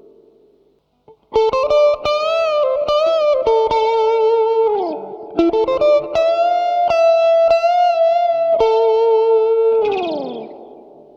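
Strat-type electric guitar with single-coil-sized humbucker pickups, played through an amp: after a brief pause, held chords and notes with vibrato, two phrases ending in a downward slide, the last ringing out and fading near the end. A clear, tight humbucker tone rather than a boomy one.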